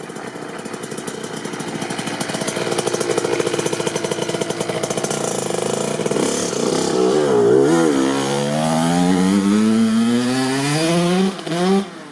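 Kawasaki KX65 single-cylinder two-stroke engine under throttle, getting louder; its pitch dips and then climbs steadily for a few seconds. Near the end the throttle is shut, with one short blip before the engine drops back.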